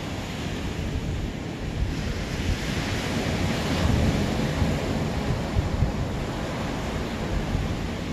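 Ocean surf washing onto the shore, a wave rushing in about three seconds in, with wind buffeting the microphone.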